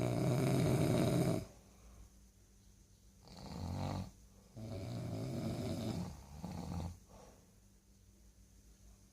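Snoring in separate loud breaths: a long snore at the start, then several shorter ones, a pause of about two seconds, and another snore beginning at the very end.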